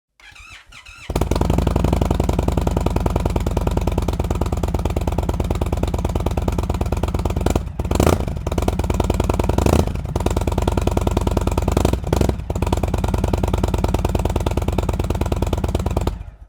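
Indian Chief Dark Horse's Thunderstroke 116 V-twin through the stock Indian Stage 1 slip-on exhaust, starting up about a second in and idling with a lumpy, pulsing beat. The throttle is blipped three times around the middle before the engine stops near the end.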